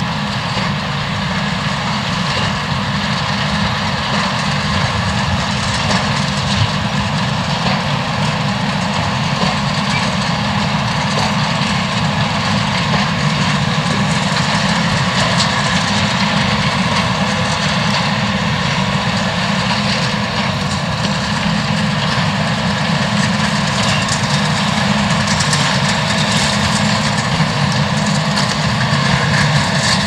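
Tractor engine running steadily under load while driving a Massey Ferguson baler in straw: a continuous mechanical drone with no pauses or changes.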